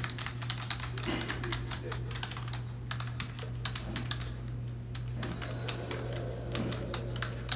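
Typing on a computer keyboard: quick, irregular keystrokes with a couple of short pauses midway, over a steady low hum.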